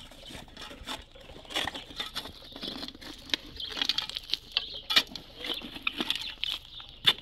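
Metal shovel digging into stony, gravelly soil: gritty scrapes and irregular sharp clicks as the blade strikes and shifts stones.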